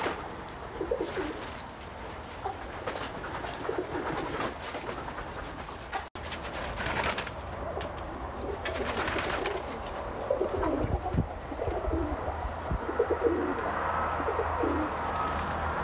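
A pigeon cooing: repeated low coos.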